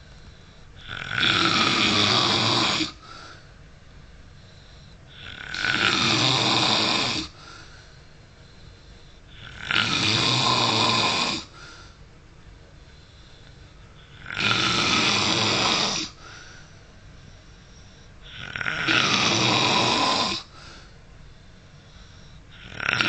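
A man snoring heavily in his sleep: a loud snore lasting under two seconds about every four and a half seconds, five in all with a sixth starting near the end, and quiet breathing between them.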